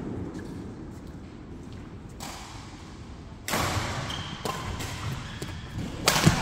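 Badminton play: sharp racket hits on the shuttlecock and footfalls on the court mats, with a loud landing thud just after six seconds as a player comes down from a jump shot.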